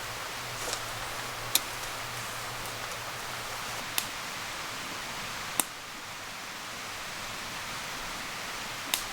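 A wood campfire burning with a steady hiss and a few sharp pops from the wood.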